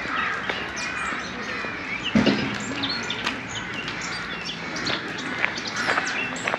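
Many small birds chirping and twittering continuously, with a brief louder, lower-pitched sound about two seconds in.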